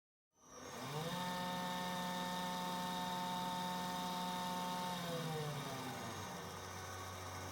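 Electric grinding machine motor spinning up, running steadily at speed, then winding down about five seconds in, leaving a steady low hum.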